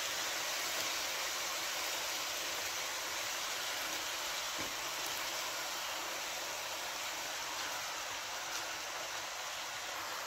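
Vegetables and chicken sizzling and simmering in a hot frying pan with a little water and oil: a steady, even hiss.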